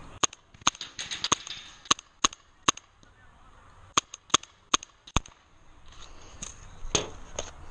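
Magazine-fed paintball marker firing single shots in irregular runs: about seven sharp pops in the first three seconds, a short pause, then about five more in a quick cluster between four and five and a half seconds in.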